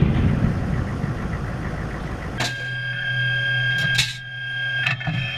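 The blast of an M1 Abrams tank's main gun rumbling and dying away over about two seconds. Then comes the steady, whining hum of the running tank heard from inside the turret, with a few sharp metallic clanks.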